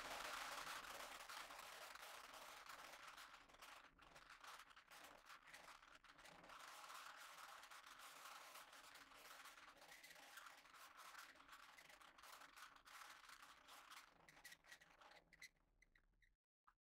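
Faint, irregular scratching and rubbing, typical of handling noise from a hand-held camera carried while walking. The sound cuts out briefly near the end.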